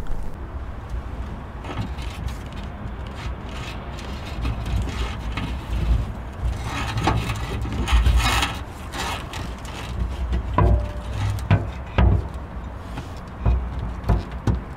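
Handling noise of work in a plastic spare-tire well: irregular rubbing and scraping with knocks and clicks as a rod and wiring are fished through. The scraping is densest about six to nine seconds in, and sharp clicks come near the end.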